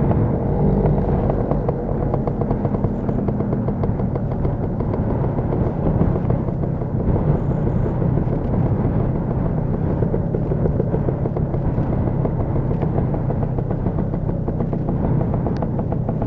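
Classic Lambretta scooter's two-stroke single-cylinder engine running steadily under way, heard from on board with a rapid exhaust rattle.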